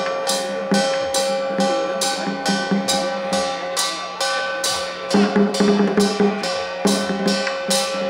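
Percussion-led music with a steady beat of bright crashing strikes, a little over two a second, over held melody notes.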